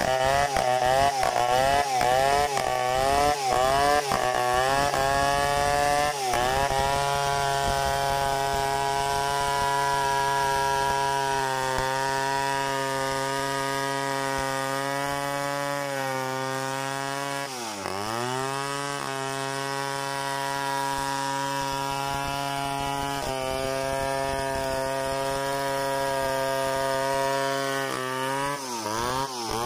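Stihl 070 two-stroke chainsaw ripping a Gmelina log lengthwise into boards. For the first six seconds the engine pitch wavers up and down under load. It then holds a steady high pitch through the cut, dips once briefly about two-thirds through, and falls as the revs drop near the end.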